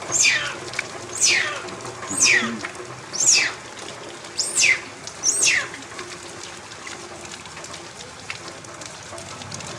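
A baby macaque crying: six high, falling calls about one a second, stopping about halfway through, over a steady hiss of rain and trickling water.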